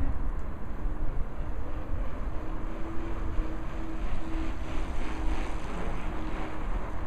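Distant motor drone holding one steady pitch, over wind rumbling on the microphone.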